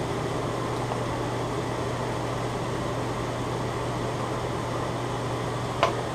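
Steady hum and hiss of kitchen background noise, with one short sharp clink near the end.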